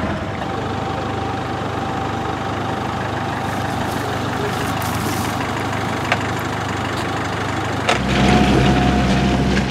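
Troller T4's turbodiesel engine running steadily at low speed. About eight seconds in, it changes to a louder, deeper engine rumble.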